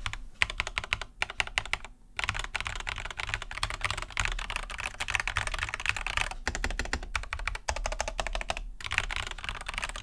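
Typing on a Lofree 1% mechanical keyboard: a dense run of keystrokes on light, pre-lubed Kailh Jellyfish linear switches under thick, hollow polycarbonate keycaps, with a few short breaks. The hollow, thick keycaps give the keyboard its distinctive typing sound.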